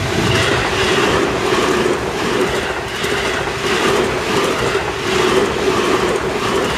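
Seibu Ikebukuro Line electric commuter train passing close by at speed: loud, steady wheel-on-rail rumble with a rhythmic clickety-clack of the wheels running over rail joints.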